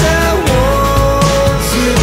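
Background music: a song with a long held melody note over a steady bass line.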